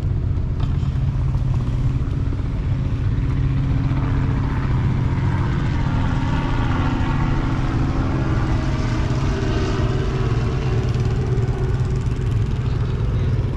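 Engine running steadily with a low, even rumble; a higher-pitched engine note swells up in the middle and fades out again.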